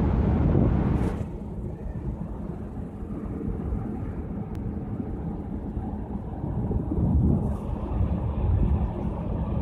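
Low, steady rumble on the open top deck of the Carnival Pride cruise ship under way, a mix of wind on the microphone and a faint steady hum from the ship. It drops a little about a second in.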